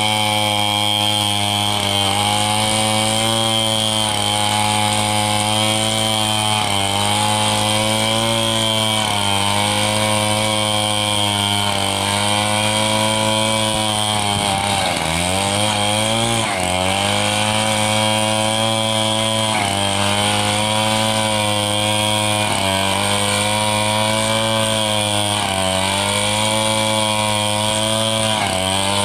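Two-stroke chainsaw running at full throttle, ripping lengthwise along a log. Its pitch sags slightly every couple of seconds as the chain bites. About halfway through, it bogs down deeply and climbs back up.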